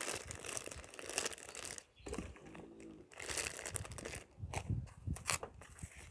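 Thin plastic food bag crinkling and rustling in irregular bursts as a hand squeezes and shakes it out, then handles plastic wrap, with a few soft low thuds about two-thirds of the way through.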